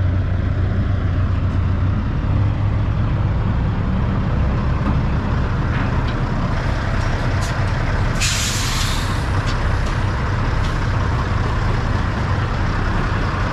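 Heavy diesel truck engines running steadily. About eight seconds in comes a loud hiss of air from truck air brakes, lasting about a second.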